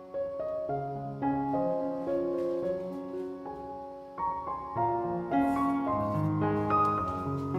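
Background piano music, a slow melody of single notes and chords.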